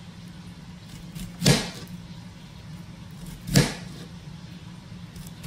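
Two knife chops through a half onion onto a plastic cutting board, about two seconds apart, over a steady low hum.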